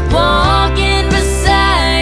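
A song playing, with a melody line sliding between notes over steady low bass notes.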